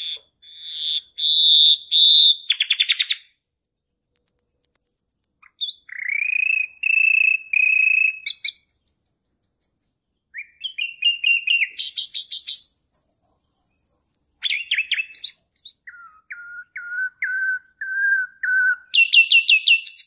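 Songbird singing a long, varied song: clear held whistles, rising slurred notes, dry rattles and thin very high trills, delivered as separate phrases with short breaks between them.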